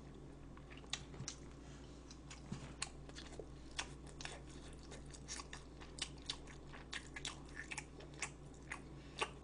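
A person chewing and biting food close to the microphone: a faint, irregular scatter of small wet clicks and crunches.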